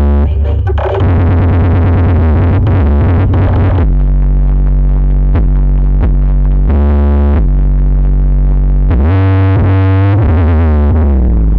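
Loud electronic music with a synthesizer melody over heavy, sustained bass, played through a large sound system.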